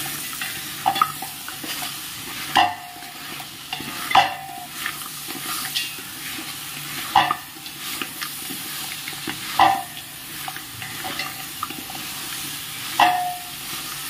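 Raw mango pieces and jaggery being stirred in a large pot on the stove, over a low sizzle. The utensil clinks against the pot every couple of seconds, with six sharper knocks that ring briefly.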